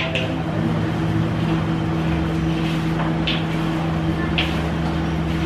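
Hands mixing a peanut and gram-flour pakodi mixture in a large perforated aluminium bowl, giving a few short scraping rustles over a steady machine hum.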